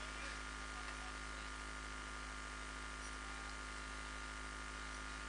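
Steady electrical mains hum with a faint hiss from the stage sound system, unchanging throughout.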